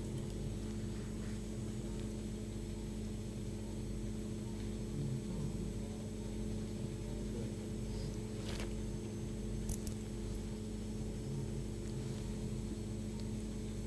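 Steady machine hum of operating-theatre equipment, with several held low tones under a low rumble. There is a brief faint click about eight and a half seconds in and another near ten seconds.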